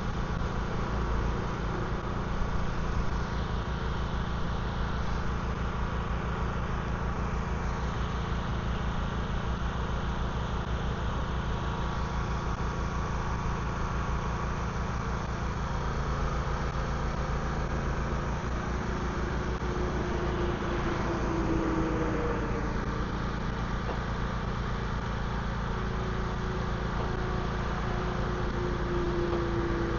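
Vehicle engine running steadily, a low even drone with faint pitch glides in the second half.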